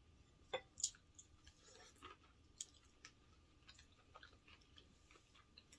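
Faint chewing and eating sounds, with a few sharp clicks, the loudest about half a second and a second in, and a soft wet stretch around two seconds in.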